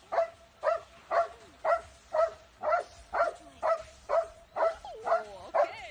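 A dog barking in a steady run of about a dozen barks, roughly two a second.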